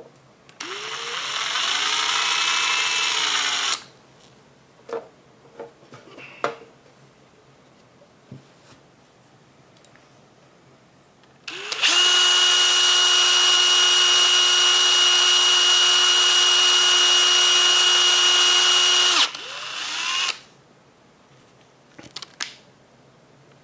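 Cordless drill spinning a cotton swab loaded with metal polish in a carburetor's brass needle seat. Two runs: a short one of about three seconds whose pitch rises and then eases off, then, about eleven seconds in, a longer steady run of about eight seconds, with a few small handling clicks between them.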